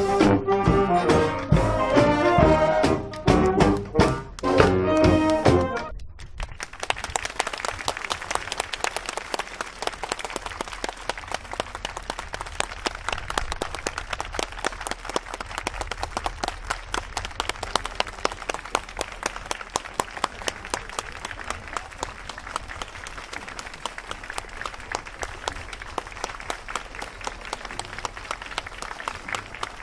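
A high school brass marching band plays the final bars of a piece and stops abruptly about six seconds in. Then the audience applauds steadily.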